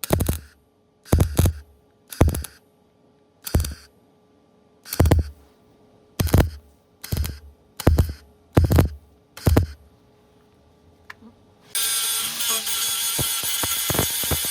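A hammer striking sheet metal, about eleven sharp, irregularly spaced blows. About twelve seconds in, a power tool starts and runs steadily with a dense, noisy sound.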